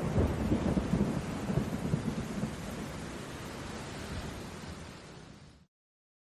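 Rain with rolling thunder, rumbling strongest in the first two seconds and then fading away until it cuts off to silence about five and a half seconds in.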